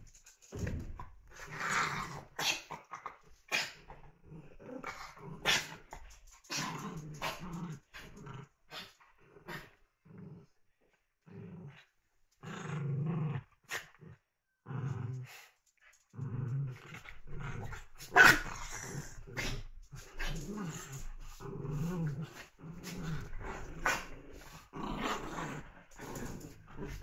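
Small puppies play-growling in repeated low rumbles as they wrestle and tug over a plush toy, with short sharp barks mixed in; the loudest comes about eighteen seconds in.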